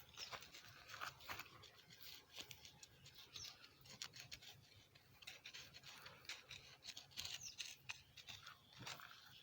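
Soil being worked and mixed with manure: faint, irregular scratching and scraping of earth, with scattered small clicks.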